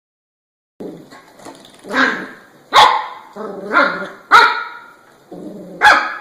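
A dog barking, starting about a second in: four sharp, loud barks spaced roughly a second apart, with lower, longer vocal sounds from the dog between them.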